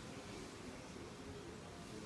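Quiet room tone: a low, steady hiss with faint, wavering pitched sounds in the background.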